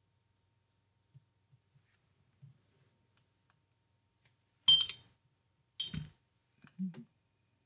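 A paintbrush knocked against the side of a glass water jar twice, about a second apart, each knock with a brief ring, followed by a few softer, duller knocks as the brush is rinsed.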